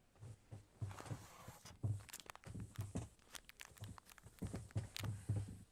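Faint shuffling footsteps and scattered knocks and rustles on a stage floor, irregular and unhurried, as two people grapple briefly over a clenched fist.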